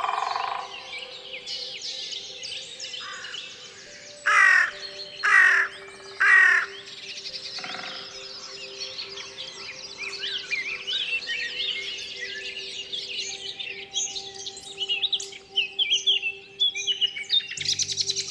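Forest songbird chorus, many birds chirping and trilling over one another, with three loud harsh caws about a second apart early on, typical of a crow. Steady held background tones sit underneath.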